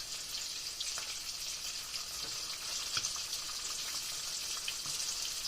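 Sliced green tomatoes frying, a steady sizzle with faint scattered crackles and pops as the slices brown.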